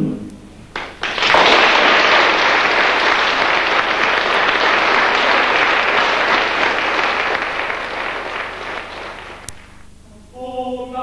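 Audience applauding: a few first claps about a second in, then full applause that fades away near the end. A men's choir starts singing again in the last second.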